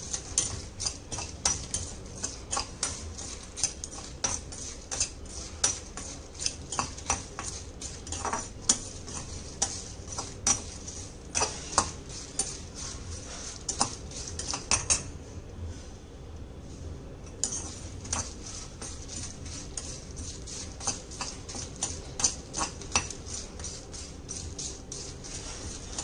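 Whole spices being stirred as they dry-roast in a pan, with a stream of irregular scrapes and clicks of the spoon against the pan and the spices rattling. The stirring pauses for a couple of seconds about fifteen seconds in.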